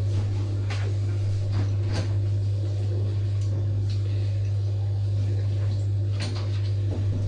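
A steady low hum, with a few light knocks and clicks scattered through it, like cupboards or doors being handled.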